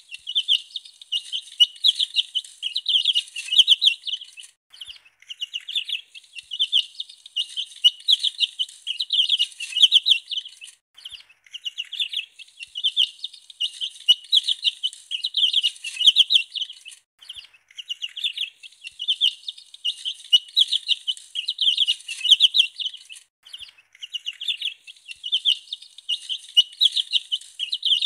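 Baby chicks peeping: rapid, high-pitched peeps in runs, broken by brief pauses about every six seconds.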